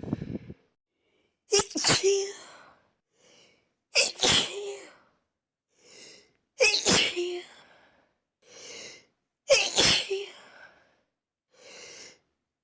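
A person sneezing again and again, set off by chhinkni sneezing powder: four loud sneezes about two and a half to three seconds apart, each preceded by a short, quieter in-breath.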